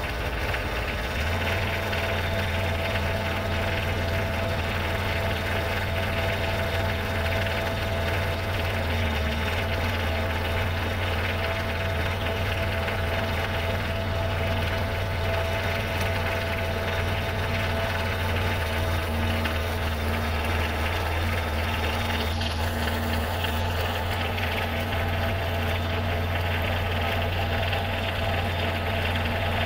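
Compact tractor's diesel engine idling steadily, a constant low hum.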